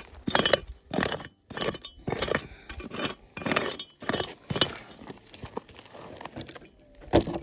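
Digging pick striking and scraping stony ground in irregular clinking blows, about one every half second. The prospector is working out a metal-detector target.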